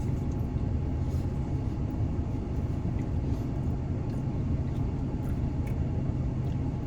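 Steady low rumble with a constant hum, like an idling vehicle engine, with a few faint clicks.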